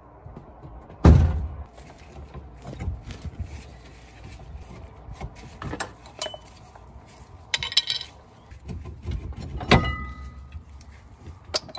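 Metal knocks and clinks from the rear brake caliper being worked off a Citroen C4's hub. There is a heavy knock about a second in, scattered clinks after it, and a second knock near the end that rings briefly.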